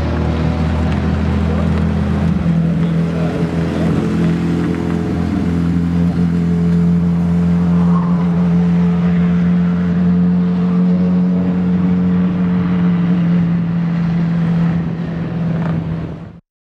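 A Fiat 126 with a swapped-in Yamaha R1 inline-four motorcycle engine running at speed on the track, a loud, steady engine note. It cuts off abruptly near the end.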